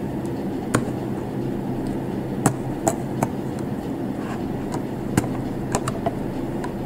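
A plastic knife pokes at and tears the inner seal of a honey jar, giving a handful of sharp, irregular clicks and taps. A steady low hum runs underneath.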